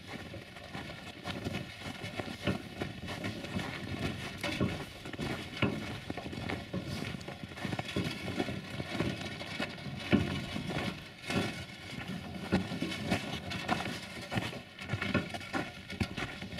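Footsteps crunching through snow at a walking pace, with a steel wheelbarrow carrying a car battery being pushed along, its wheel rolling over the snow.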